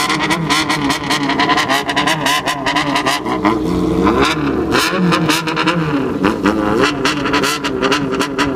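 Loud engine exhaust through a bolt-on 50.8 mm megaphone-type aftermarket silencer, revved over and over at low to middle revs, its pitch rising and falling again and again.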